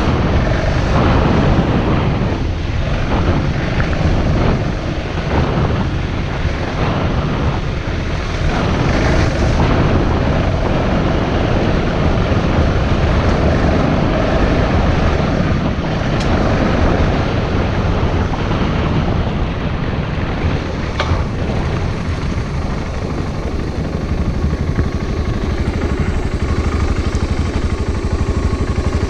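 Steady rumble of wind on the microphone mixed with tyre and road noise from a bicycle being ridden.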